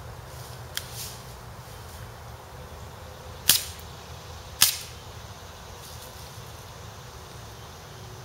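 Two sharp shots from an airsoft BB gun, about a second apart, with a fainter click about a second in. The gun is fired without a barrel plug or suppressor.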